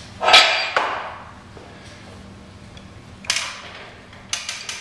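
Hammer blows on the metal of a centrifugal pump's power frame assembly. There are two sharp strikes near the start, one a little past halfway, then three quick ones near the end, each ringing briefly.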